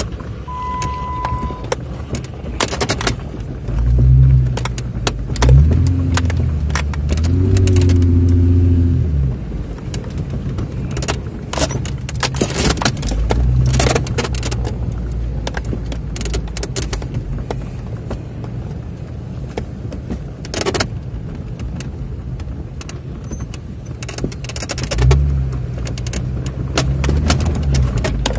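Jeep Wrangler engine heard from inside the cab while driving over sand dunes, surging louder several times as the throttle is opened, once with a rising rev. Frequent knocks and rattles from the vehicle bouncing over the rough sand run through it.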